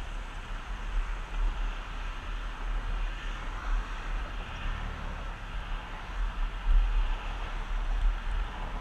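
Wind gusting on the microphone as a low rumble, over a steady rolling hiss of wheels on asphalt and traffic on the road alongside.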